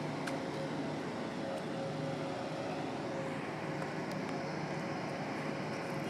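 Street traffic noise: a steady engine hum under a constant wash of road noise, with a few faint ticks.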